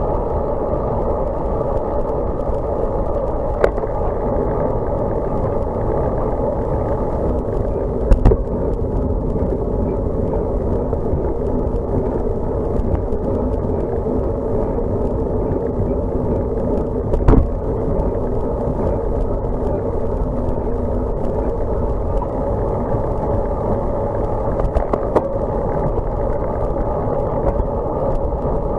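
Road bike rolling along the road, heard through a bike-mounted camera: a steady rush of tyre, road and wind noise, with a few sharp knocks from bumps, the loudest about 8 and 17 seconds in.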